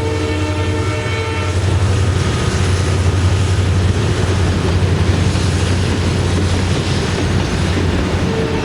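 WDG4 diesel locomotives' EMD two-stroke engines running with a deep steady drone, over the rumble and clatter of the tanker wagons. A multi-tone locomotive horn sounds at the start, stops about a second and a half in, and starts again at the very end.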